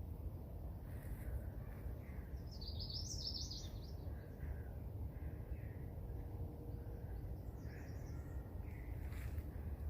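Several wild birds singing and chirping, with a burst of rapid high song about three seconds in that is the loudest part, and a fainter one near the end. A steady low rumble runs underneath.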